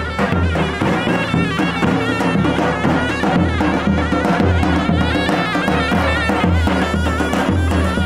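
Davul bass drum beaten with a mallet in a steady rhythm, under a zurna playing a wavering, ornamented folk melody.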